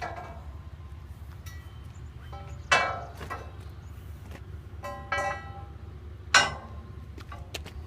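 Sharp metal-on-metal clinks that ring briefly: a steel bar set and shifted against the faces of a sawmill band wheel to check it for square. Three louder ringing strikes, about 3, 5 and 6.5 seconds in, with lighter taps between, over a steady low hum.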